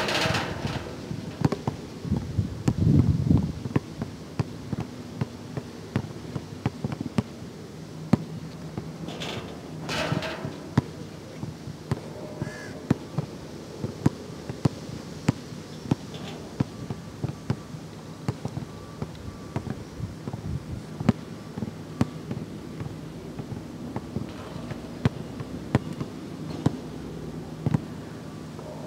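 Basketball bouncing again and again on a hard outdoor court as it is dribbled, sharp thumps about once or twice a second. A louder low rush comes about three seconds in.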